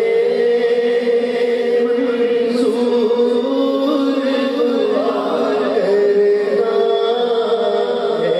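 Men's voices singing a slow devotional naat together into microphones. A lead reciter carries the melody in long held notes over a steady drone from the others.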